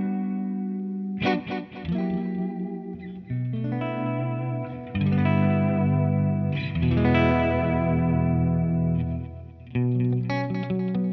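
Electric guitar played through the GFI System Orca delay pedal into a Fender Super Sonic 22 tube amp: chords struck every second or two, each ringing on with its delay repeats.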